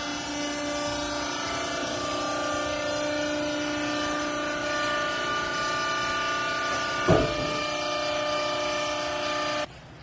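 Hydraulic power unit of a vertical used-clothes baler running with a steady hum of several held tones, one sharp clunk about seven seconds in, then the motor cuts off suddenly near the end.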